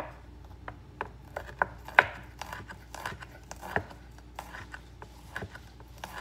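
Chef's knife chopping garlic on a wooden cutting board: irregular taps of the blade on the board, one to three a second, the loudest right at the start and about two seconds in.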